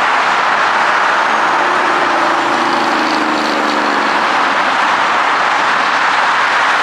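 Dense multi-lane freeway traffic passing without a break: a steady wash of tyre and engine noise. From about two to four seconds in, one passing vehicle's engine hum stands out.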